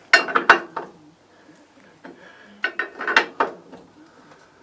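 Sharp metallic clicks and clatter of hand tools working a motorcycle's freshly loosened rear axle nut, in two short clusters: one right at the start and one about three seconds in.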